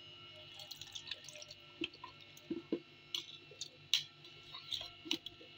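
Thick yogurt being spooned out of a glass bowl into a plastic blender beaker: faint wet plops and soft taps and scrapes of a metal spoon, scattered every second or so.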